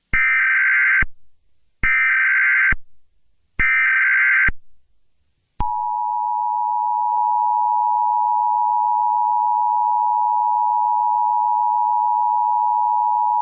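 Emergency Alert System header: three short bursts of warbling digital data tones about a second each, then, about halfway in, the EAS attention signal, a steady two-tone alert sound that holds without a break. Together they announce that a spoken emergency alert message follows.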